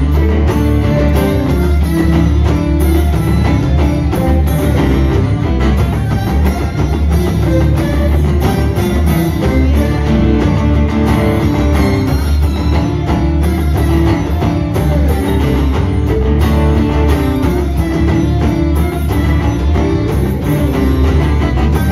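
Live band music: a Takamine acoustic-electric guitar strummed steadily over a full, bass-heavy band sound, with violin and cello playing along.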